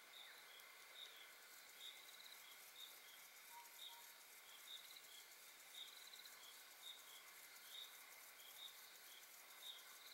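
Faint high chirping calls of small wild creatures, repeating about once or twice a second, some as quick trills, with two soft lower notes near the middle.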